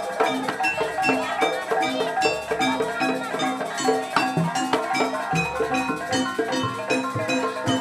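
Jaranan accompaniment music: gamelan-style tuned metal percussion playing a fast repeating pattern over drums.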